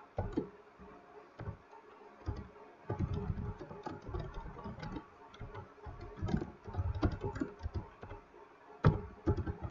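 Typing on a computer keyboard: irregular keystroke clicks with soft thumps as text is entered.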